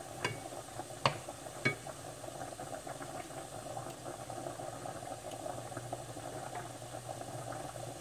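Food simmering and bubbling in a frying pan, a steady hiss and bubble. A wooden spatula knocks sharply against the pan three times in the first two seconds, the loudest about a second in.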